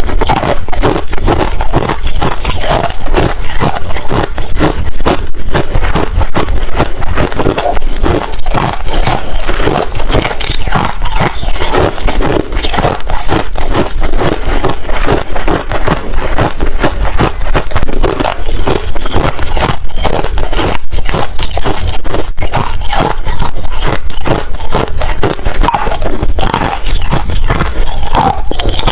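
Ice being chewed close to the microphone: loud, continuous crunching and crackling with no pause.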